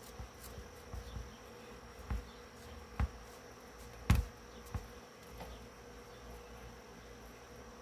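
Irregular light clicks and taps of an X-Acto knife cutting X-shaped slits in speaker grill cloth, about seven in all, the sharpest about four seconds in, over a steady faint buzzing hum.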